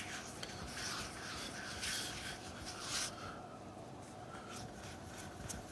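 Hands rolling a ball of saffron flatbread dough on a floured wooden chopping board: soft dry rubbing strokes, a few in the first three seconds, then quieter.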